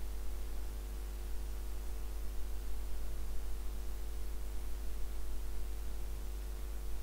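Steady low hum and hiss of background noise with no other sound, unchanging throughout.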